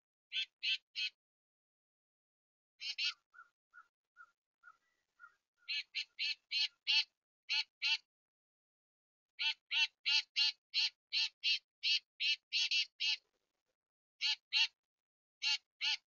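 A bird giving a long series of short, harsh calls in quick runs of about three a second, with a few softer, lower notes about three to five seconds in.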